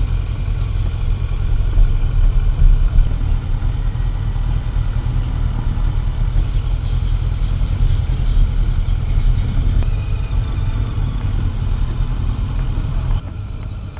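Kawasaki Z900 motorcycle engine running while riding, under heavy low wind rumble on the camera's microphone. The sound steps down and goes duller near the end.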